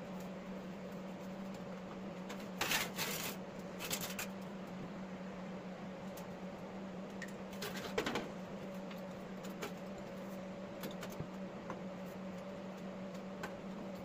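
A thin sheet-metal patch panel scraping and rattling against a rusted steel mower deck as it is handled into position, in a few short scrapes about three, four and eight seconds in. A steady low hum runs underneath.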